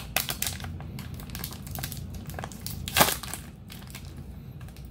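Foil wrapper of a Pokémon card booster pack crinkling and crackling in the hands as the cards are pulled out of it. One louder crackle comes about three seconds in.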